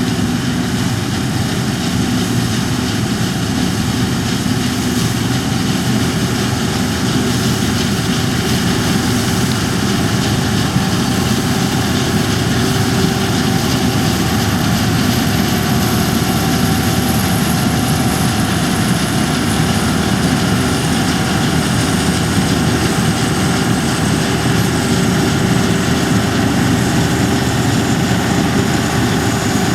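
New Holland Clayson 8060 combine harvester running steadily, its engine and threshing machinery making a continuous heavy drone. A faint high whine slowly falls in pitch over the second half.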